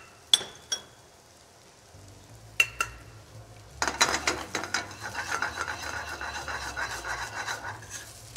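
A metal spoon clicks sharply against a skillet a few times. Then, about four seconds in, couscous with pine nuts and diced vegetables is stirred briskly in the hot skillet: a dense scraping of spoon on pan over a light sizzle.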